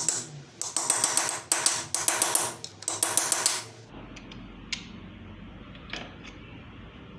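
Hand tools working on metal moped engine parts: four short bursts of rapid metallic clicking in the first four seconds, then a few separate light metal clinks.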